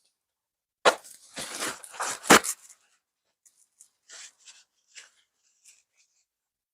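Hand-handling of plastic foam-blaster parts: a cluster of clicks and scrapes with a sharp knock about two seconds in, then fainter light taps and rustles.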